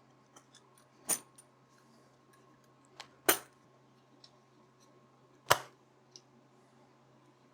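Sharp metallic clinks and knocks as bent angle-aluminum template pieces are handled and test-fitted, three loud ones about two seconds apart with small ticks between. A faint steady hum lies underneath.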